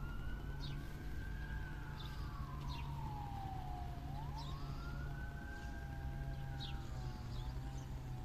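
A siren wailing, its pitch rising and slowly falling in two long sweeps, over a steady low hum. Short high chirps sound several times.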